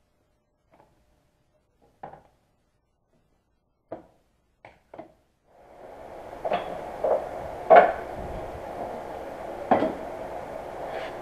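Small clicks, then several sharp plastic-and-wood knocks as a vacuum press frame is opened and a formed Kydex holster shell is lifted out and set on a wooden workbench. From about halfway a steady hum sounds under the knocks.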